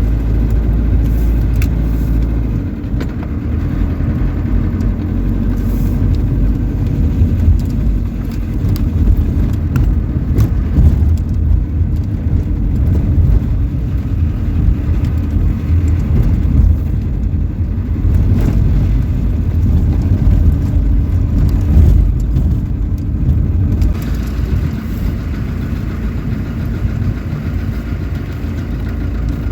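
A motor vehicle running: a loud, steady engine and road rumble, strongest in the low end, with no break.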